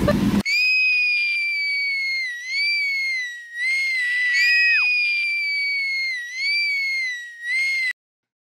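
A high-pitched whine in long, slightly falling phrases with short dips and one sharp downward drop about halfway. It cuts off suddenly near the end.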